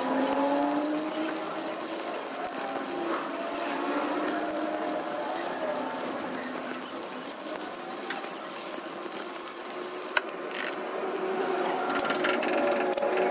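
Stick-welding arc crackle and hiss over a wavering machine whine, then a few sharp metal taps near the end as a chipping hammer knocks slag off the fresh weld on the axle.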